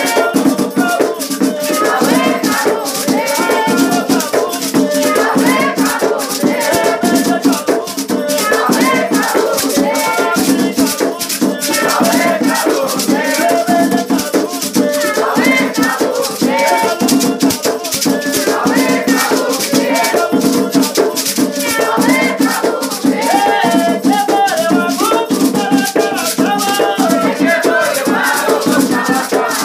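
Afro-Brazilian batuque ceremonial music: singing over a fast, continuous shaker rattle.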